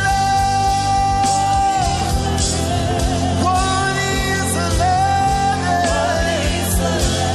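Live worship band music with a steady beat, a bass line and long held notes, with singing.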